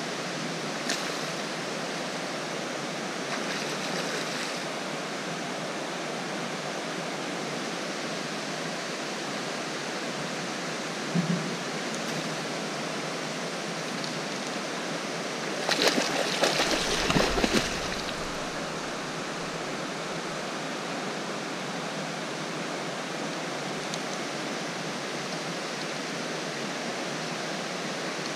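River water rushing steadily over and below a small weir. About sixteen seconds in there is a louder burst of noise with knocks, lasting about two seconds.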